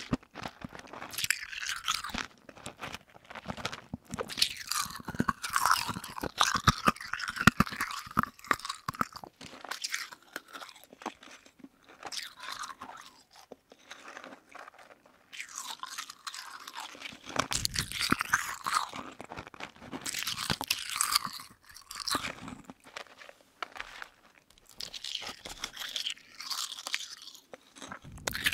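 Close-miked chewing of marshmallow and sugar-bead-coated berry jelly candy, with fine, dense crunching and crackling. It comes in bouts with short quieter pauses between them.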